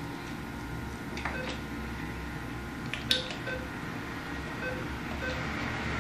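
NCR cash machine keypad beeping at each key press as an amount is keyed in: several short beeps spread a second or so apart, some with a light click, over a low steady hum.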